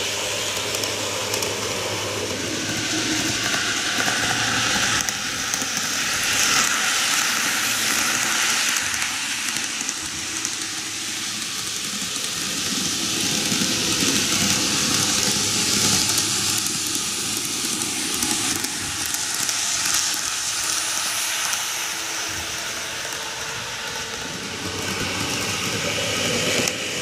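N-gauge model trains running on the track: a steady rolling hiss of the small wheels and motors on the rails, rising and falling gently as the trains go round the loop.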